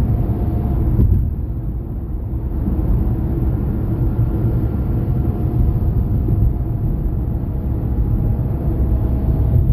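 Steady low road and engine rumble of a car driving along, heard from inside the cabin.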